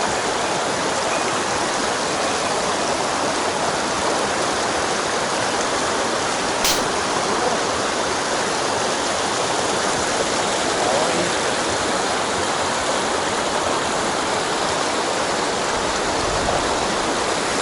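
Mountain stream water rushing steadily, with a single sharp click about seven seconds in.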